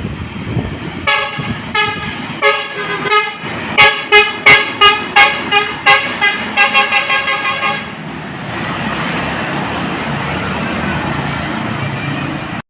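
Basuri musical bus horn playing a quick tune of short stepped notes, loudest in the middle, then steady vehicle noise as the bus carries on.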